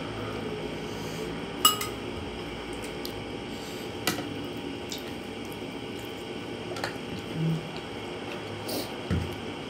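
A metal spoon clinking against a ceramic plate a few times, spread-out light clinks with quiet handling of the food between them.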